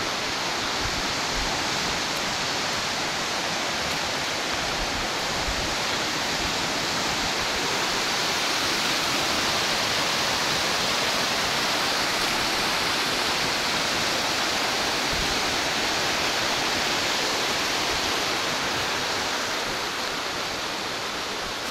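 Rain-swollen Torc Waterfall stream rushing in a steady roar of water, growing a little louder midway and easing toward the end.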